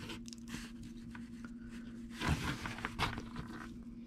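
Handling noise from a multimeter test probe and thin microphone cable being moved and touched to a quarter-inch phone plug: a rustle about two seconds in and a short click about a second later, over a low steady hum.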